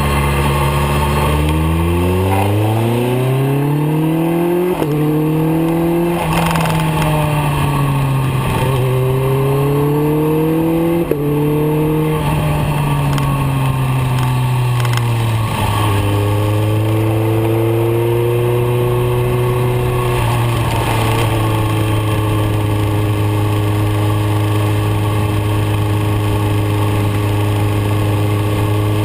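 BMW K1300R's inline-four engine heard from on board. In the first half it rises and falls in pitch as the bike accelerates, changes gear and eases off, then it holds a steady note at cruising speed from about halfway on.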